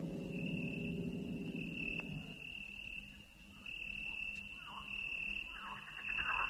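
Cartoon soundtrack of sound effects. A low gong-like ringing dies away over the first two seconds while a steady high trill runs on, and short falling chirps come in from about four seconds in.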